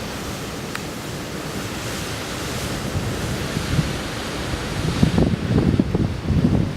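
Wind rushing steadily, with gusts buffeting the microphone from about five seconds in.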